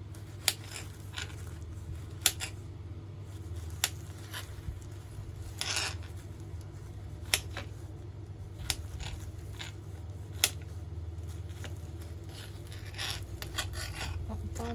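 Kitchen knife slicing through fresh strawberries and clicking against the cutting board, a sharp tap every second or two with a short scrape partway through.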